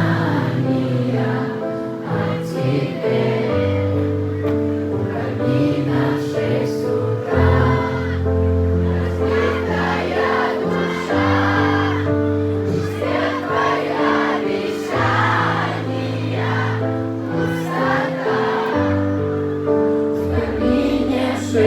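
Live pop song with a steady, deep bass line and held keyboard chords, and many voices singing together in a choir-like sound without clear words.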